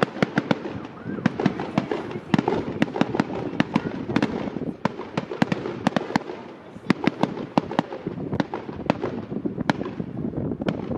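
Fireworks display going off: rapid, irregular sharp bangs and crackles, several a second, over a continuous background of distant bursts.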